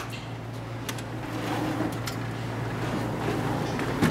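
Vending machine's front door being unlocked and opened: a click at the lock at the start, a few light ticks, and a louder clunk near the end as the door swings open. A steady low hum runs underneath.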